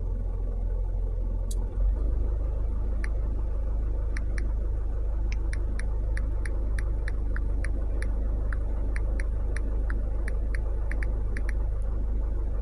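Phone on-screen keyboard key clicks while typing a search: a few single taps, then a quick irregular run of clicks from about five seconds in. Under them, a steady low rumble from inside the car.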